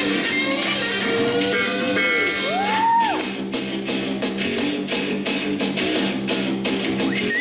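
Background music, an instrumental passage of a song: guitar with sliding notes over a steady beat, the beat coming through plainly from about three seconds in.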